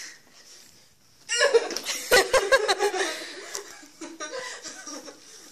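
Laughter bursting out just over a second in, loud for about two seconds, then trailing off into quieter chuckles.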